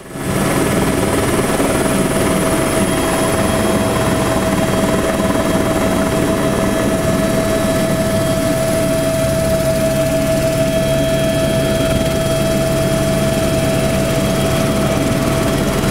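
Helicopter engine and rotor noise during takeoff and climb: a loud, steady drone with a constant high whine over it, fading in at the very start.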